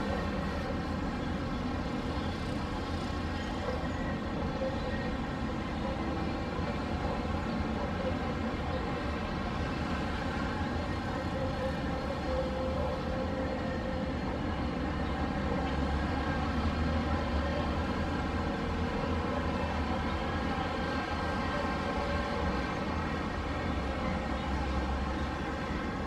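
Distant city traffic: a steady low rumble with a faint continuous hum over it.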